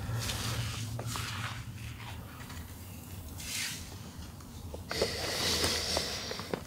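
Plastic sheeting rustling as a man shifts his arms while lying wrapped in it, thickest near the end, over a low steady hum with a few small clicks.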